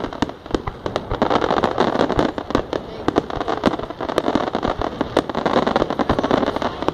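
Aerial fireworks display: a rapid, unbroken stream of shell bursts and crackling pops, many per second.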